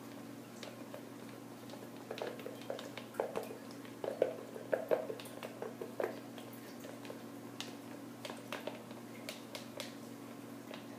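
Spatula scraping and tapping thick cold-process soap batter out of a plastic mixing container onto the layer below: a scatter of soft squishy clicks and taps, busiest between about two and six seconds in.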